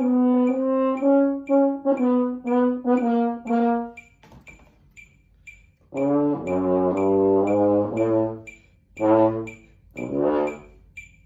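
French horn playing a practice exercise: a run of short notes stepping downward, a pause of about two seconds, then lower notes in short phrases. A metronome clicks steadily about twice a second throughout.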